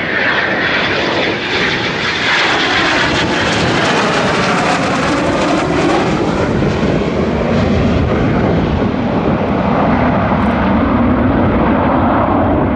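Jet noise from a Dassault Mirage 2000 fighter's single SNECMA M53 turbofan as it flies low past: a loud, steady rushing roar whose tone slowly sweeps as the jet moves.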